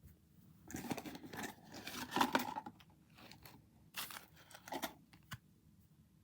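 Packaging being torn and crinkled open by hand, in several rustling bursts with a sharp click near the end.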